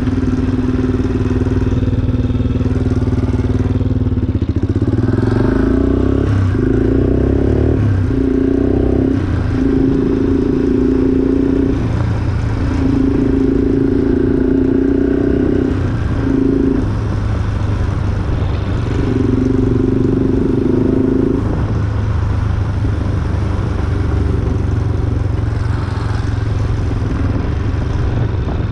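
Yamaha Raptor 350 quad bike's single-cylinder four-stroke engine running while riding, its note coming and going in repeated spells of a second to a few seconds as the throttle is opened and closed, then steadier and lower for the last several seconds.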